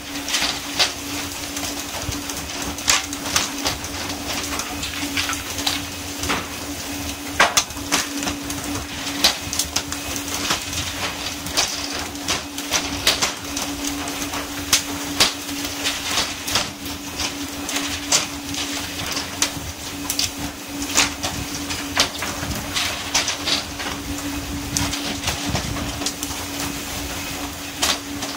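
Irregular slaps and knocks of pole-caught tuna hitting and flapping on a boat's deck, several every second, over a steady engine hum and the hiss of water spray.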